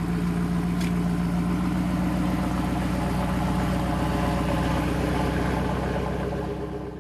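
A 1979 Triumph Spitfire differential spun by a motor on the bench, turning in reverse, with both axle ends going the same speed. It gives a steady mechanical hum that winds down near the end.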